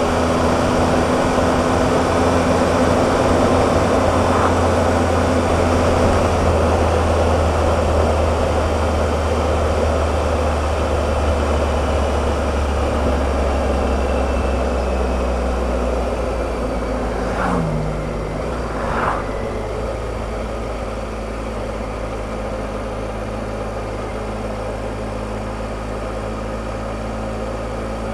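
Triumph Explorer's three-cylinder engine running on the road with wind rushing past. About halfway through the engine note drops as the bike slows, two short sharp sounds come a second and a half apart, and then the engine settles to a lower, steady idle.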